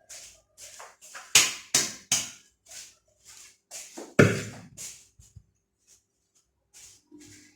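A metal cooking pot knocked and tapped about in the hands, about a dozen sharp strikes at uneven spacing, the loudest a cluster of three about a second and a half in and one about four seconds in that rings briefly. The pot has just been oiled and is being dusted with flour to keep the cake from sticking.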